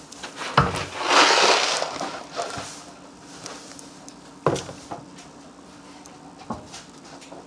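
Small plastic toy pieces being handled and fitted together: a few sharp clicks and knocks, with a rustle about a second in.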